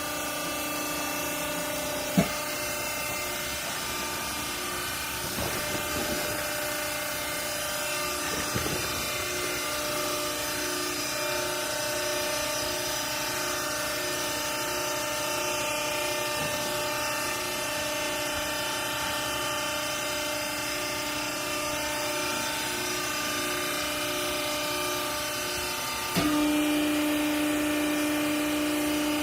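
Garment baler's motor and hydraulic pump running with a steady hum, with a single click about two seconds in. About 26 seconds in, a louder, lower hum cuts in suddenly and holds.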